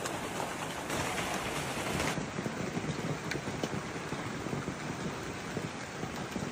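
Heavy hail and rain pelting down on hard surfaces: a dense, steady hiss dotted with many small sharp hits. The sound changes about two seconds in.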